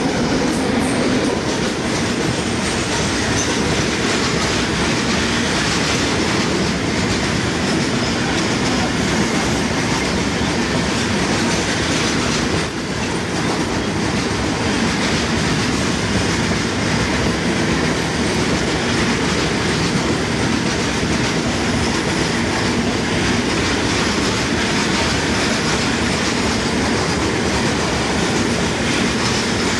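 A long freight train of open box wagons rolling past close by at speed, the wheels running steadily over the rail joints. A single sharp knock with a brief high squeal comes about halfway through.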